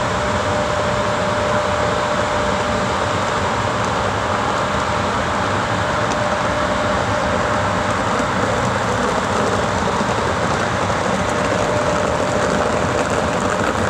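An EP1P electric locomotive hauls a passenger train slowly out of a station: a steady rumble and hum of the locomotive and the rolling train, with a thin steady whine that fades in the middle and returns near the end.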